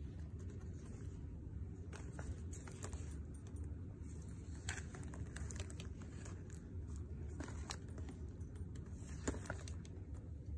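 Faint handling noise: a steady low rumble with scattered light clicks and taps.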